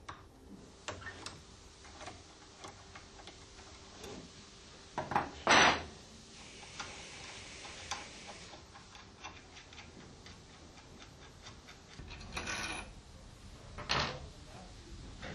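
Light metallic clicks and ticks of a spanner and screwdriver working the lower screws and nuts of a stainless steel Alfa Laval LKB-2 butterfly valve body clamped in a vise. A few louder metal clinks come about five and a half seconds in and again near the end, as loose parts are handled.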